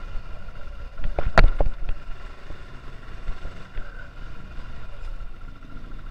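Motorcycle running steadily while being ridden, with a short cluster of sharp knocks about a second and a half in.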